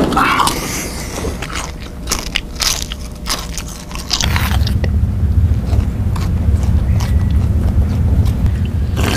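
Loud, crisp crunching bites into Pringles potato chips, a series of separate crunches over the first four seconds. After that a steady low rumble takes over.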